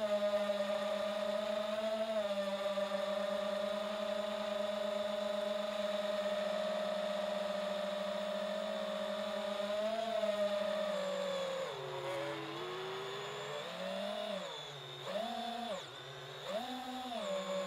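FPV quadcopter's electric motors whining at a steady pitch. From about two-thirds of the way in, the pitch drops and climbs back several times as the throttle is eased off and punched again.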